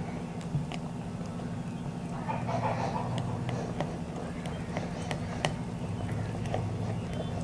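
Silicone spatula stirring thin cake batter in a glass bowl: soft wet swishing with scattered light clicks against the glass, over a steady low hum.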